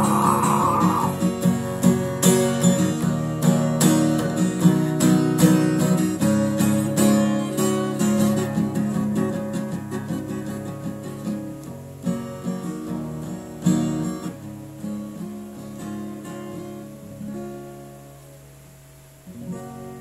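Acoustic guitar played alone, notes picked and strummed, growing quieter and sparser through the second half until it has almost faded out, with one last soft sound near the end.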